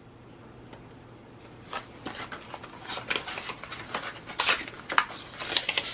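Small cardboard product carton being handled and opened: irregular rustles and light clicks of the flaps and packaging, starting about two seconds in.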